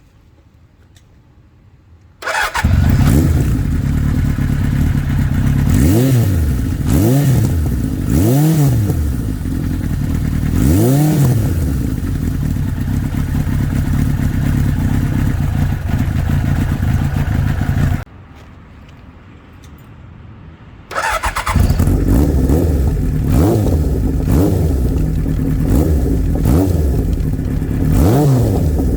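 Kawasaki Z1's air-cooled 903 cc inline-four firing up through a four-into-one collector exhaust about two seconds in. It idles with several quick throttle blips that rise and fall in pitch. Near two-thirds through it cuts out for about three seconds, then starts again and idles with more blips.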